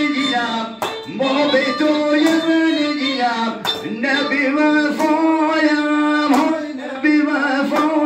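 A man singing a folk song with violin accompaniment, with long held notes, and a few hand claps among the singing.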